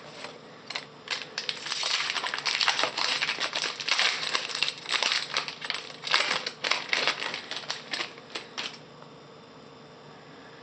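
Shiny Topps Chrome trading-card pack wrapper crinkling and tearing as it is opened by hand: a rapid, irregular run of crackles that stops about nine seconds in.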